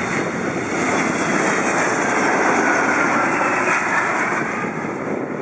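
Boeing 777-200ER jet airliner flaring low just before touchdown, its twin turbofan engines making a steady jet roar that swells a little toward the middle and eases slightly near the end.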